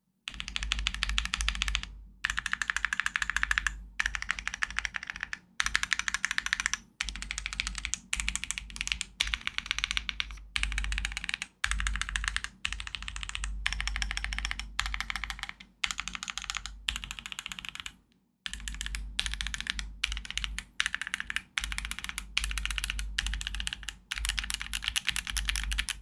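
Typing on a YUNZII AL66 aluminium 65% mechanical keyboard with YUNZII Milk switches on a PC plate and dye-sub PBT keycaps. Dense runs of rapid keystrokes are broken by short breaks every second or two.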